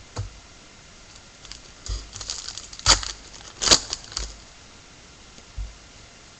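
Trading-card packs and cards being handled, with crinkling and rustling of the wrappers and two sharp crackles about three and almost four seconds in.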